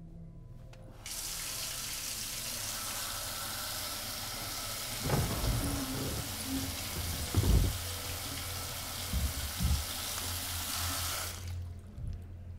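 Bathroom sink tap turned on about a second in, water running into a pedestal sink for about ten seconds and then shut off. A few dull low thumps sound partway through.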